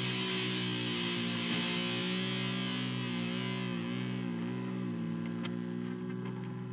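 Background music: one held electric guitar chord ringing and slowly fading, its pitch wavering briefly near the middle.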